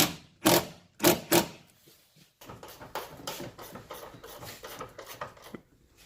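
Handling noise from car-door parts and wiring: three loud knocks in the first second and a half, then a pause, then about three seconds of rapid small clicks and rubbing.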